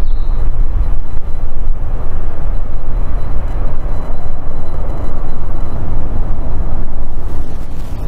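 Boeing 777 freighter's two GE90-110B1L turbofan engines at takeoff thrust as it climbs out after liftoff: a loud, steady noise, heaviest in the low end.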